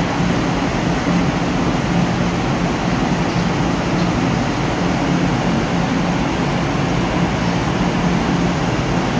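Korail RDC Mugunghwa diesel railcar standing at the platform with its engines idling: a steady, even drone with a low hum that does not change.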